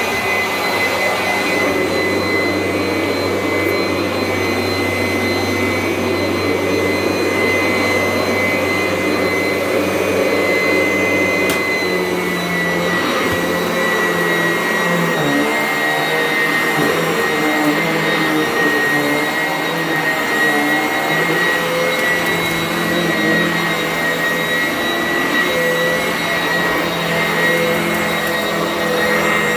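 Sanitaire upright vacuum cleaner running steadily, its motor giving a constant high whine; about halfway through the pitch dips slightly and the lower hum changes.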